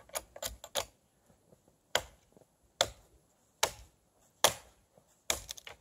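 Buck 119 hunting knife chopping into a thin stick: a few light taps, then a run of sharp chops about one every second.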